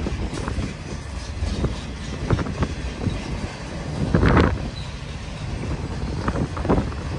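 Autorack freight cars of a manifest train rolling past close by: a steady low rumble of steel wheels on rail, with irregular clacks as the wheels cross rail joints. The loudest clatter comes about four seconds in.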